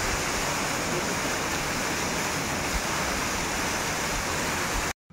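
Heavy rain pouring down in a steady, even downpour, cutting off suddenly near the end.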